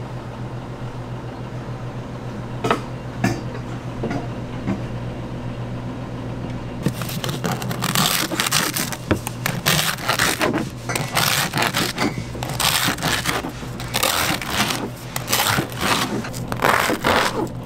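Serrated bread knife sawing through a crusty baguette on a plastic cutting board, the crust crackling and scraping with each quick stroke, starting about seven seconds in. Before that, a steady low hum with a couple of light knocks.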